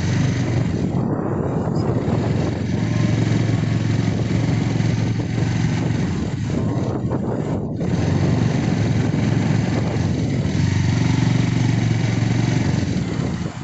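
Motorcycle engine running steadily under way, with a constant rush of wind and road noise over it.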